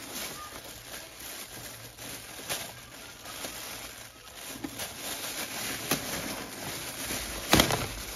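Thin plastic bag rustling and crinkling as hands untie it and pull it open, with a few sharper crackles; the loudest comes near the end.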